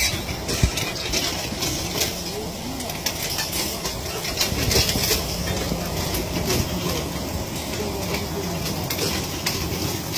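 Mechanised radish harvester running steadily, its lifting belts pulling radishes up out of the soil by their tops, with many small clicks and knocks from the machinery.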